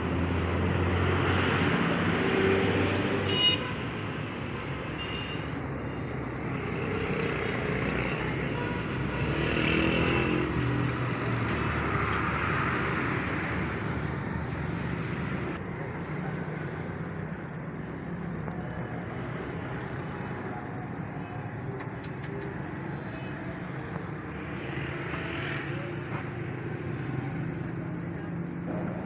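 Road traffic noise: vehicles running and passing, a steady background hum that rises and falls a little.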